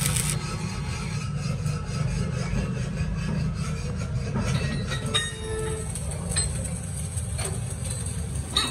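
A steady low mechanical rumble with four sharp metallic clicks in the second half, a little over a second apart.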